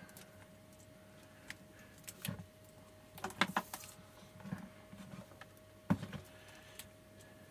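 Scattered soft clicks and rustles of a multimeter and its test leads being handled, with a cluster of sharper clicks a few seconds in and another about six seconds in.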